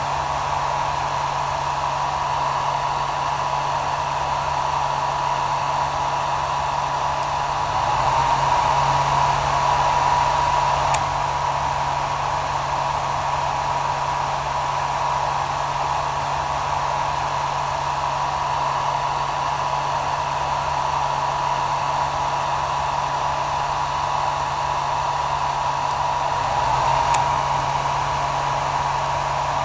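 Electric hair dryer running steadily: a continuous rush of blown air over a whining motor tone and a low hum, swelling slightly twice.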